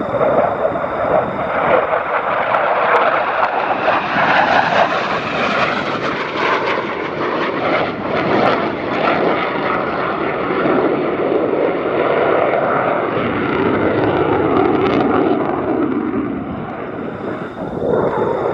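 Single-engine F-16 jet of the USAF Thunderbirds (Thunderbird 8) running loud, a continuous jet roar that builds a few seconds in and eases off near the end as it passes.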